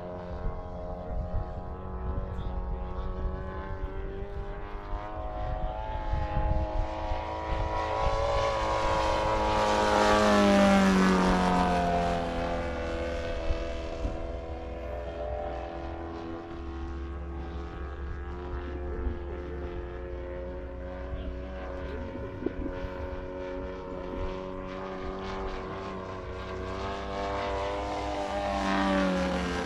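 Radio-controlled model airplane flying, its motor and propeller running steadily. The pitch drops as it passes close, loudest about ten seconds in, and it passes again near the end.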